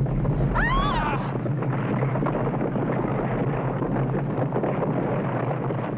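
Earthquake sound effect: a heavy, continuous rumble as the ground splits open. A woman gives a short cry of fright about a second in.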